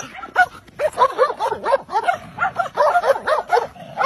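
Dogs barking and yipping excitedly. A few single barks come first; from about a second in the barks come thick and fast, overlapping one another.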